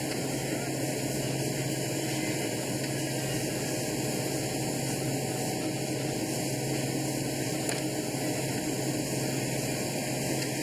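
Steady industrial machinery drone with a constant low hum, even and unbroken throughout.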